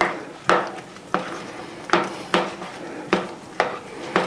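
A utensil clinking and scraping against the side of a dish as food is stirred, in short knocks about two a second.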